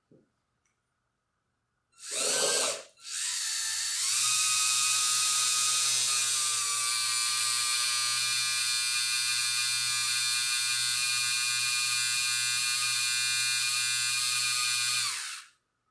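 Small electric water pump, run through a speed controller, whirring as it fills a vented ballast tank with water. A short burst about two seconds in, then a steady high whine that picks up a little a second later and cuts off suddenly near the end.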